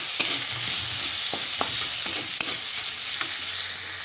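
Pieces of boiled bhat kerela (bitter gourd) sizzling as they fry in oil in a metal kadai. A metal spatula stirs and scrapes the pan, giving scattered sharp clicks over the steady sizzle.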